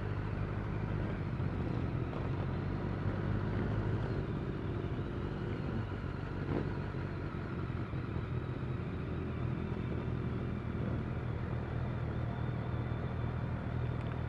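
Motorcycle engine running at steady revs while riding, with road and wind noise.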